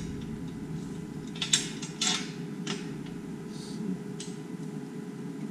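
Metal hardware clinking and knocking a handful of times, over a steady low hum.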